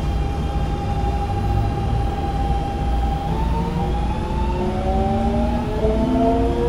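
Keikyu N1000 series train's Siemens GTO VVVF inverter and traction motors pulling away: a steady whine gives way, about halfway through, to a staircase of rising stepped tones, the 'doremifa' scale, over the low rumble of the wheels on the rails.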